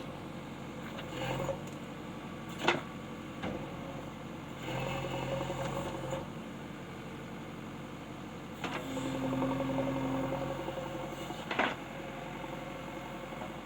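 A small motor whirring steadily in three short spells of one to two seconds each, with two sharp clicks between them.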